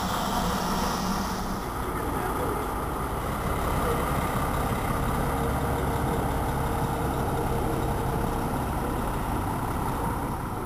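Heavy lorry's diesel engine running steadily as the articulated low-loader pulls slowly past with its load, a continuous low rumble.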